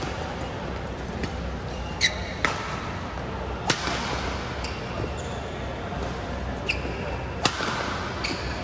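Badminton rally: rackets striking the shuttlecock in sharp cracks a second or so apart, with short squeaks of court shoes on the sports mat as the players lunge and push off, over a steady low hum.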